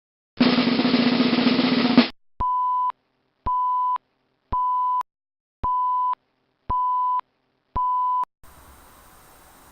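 A loud burst of noise about two seconds long, then six even, steady-pitched electronic beeps, each about half a second long and about a second apart: an alert signal opening a weather emergency announcement.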